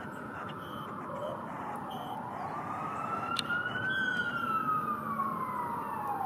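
Emergency vehicle siren wailing, its pitch sliding slowly down, then up, then down again, about two seconds each way.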